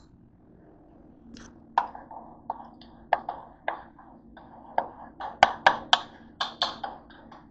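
A metal utensil clinking and scraping against the side of a bowl while stirring a thick mixture: a quick, irregular run of sharp ringing taps that grows busier toward the end.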